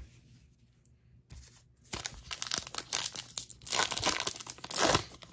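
A Topps Heritage baseball card pack wrapper being torn open and crinkled: quick crackling bursts that start about two seconds in, loudest near the end.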